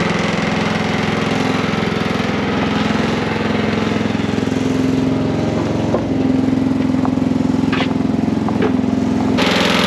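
Wood-Mizer LX55 sawmill's engine running steadily, with a few short clicks or knocks near the end and a brighter, noisier sound setting in just before the end.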